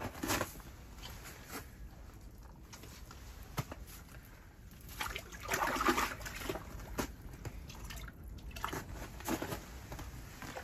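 Water sloshing and splashing in an ice-fishing hole as hands work in it, in a few irregular bursts, the loudest about halfway through.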